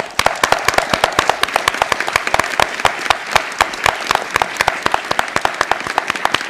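Auditorium audience applauding: dense, sustained clapping that starts suddenly and keeps on steadily.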